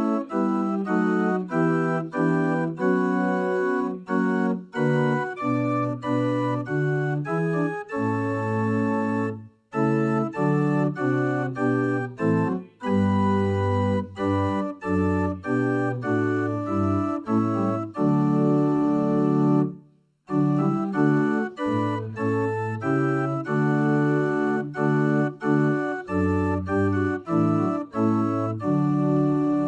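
Organ playing a hymn tune in held chords that move step by step, with short breaks between phrases.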